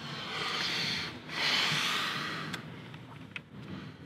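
A person breathing in and then letting out a long, heavy sigh that fades out, with a few faint clicks after it.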